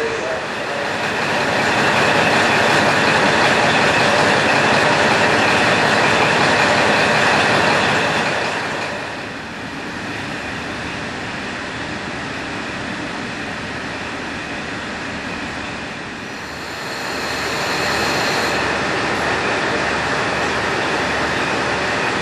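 KiHa 40 diesel railcar running, its engine and wheels making a steady loud rumble that eases off about eight seconds in. A brief high squeal comes near the end.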